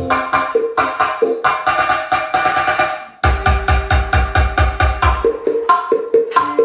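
Electronic dance music played loud through a car-audio style speaker box, with a fast synth and percussion beat; after a brief drop about three seconds in, heavy bass kicks come in.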